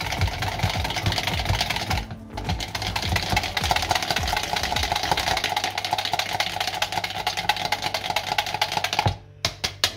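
A metal whisk beating buttermilk and spices in a plastic measuring jug: rapid, even clicking and clattering of the wires against the jug. There is a short break about two seconds in, and it stops about nine seconds in.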